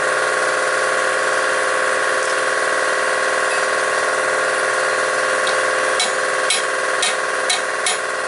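Five sharp hammer taps on metal, about half a second apart, over a steady mechanical hum.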